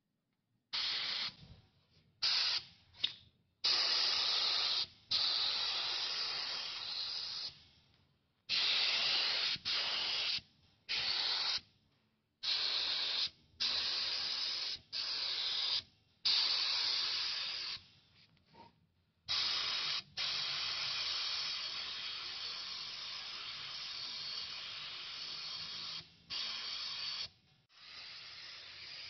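Auarita H921 mini HVLP spray gun hissing as the trigger is pulled and released, letting out compressed air in many short bursts, then in a long steady blast through the later part with one brief break.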